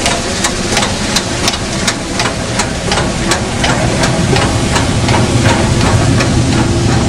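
Steam locomotive standing with a steady, even beat of about three strokes a second over a constant hiss of steam and a low hum.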